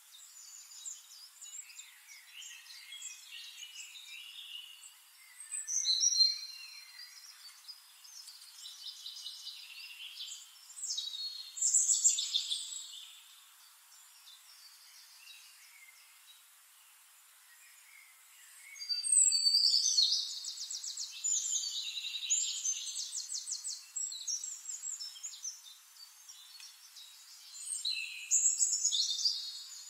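Small songbirds chirping and trilling, with louder bursts about 6 and 12 seconds in, a run of fast, rattling trills from about 19 to 24 seconds, and another burst near the end.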